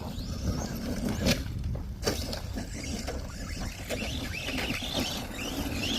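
ARRMA Vorteks RC stadium truck driving over dirt, its electric motor whining up and down in short bursts of throttle, with a couple of sharp knocks about a second in and two seconds in over a steady low rumble.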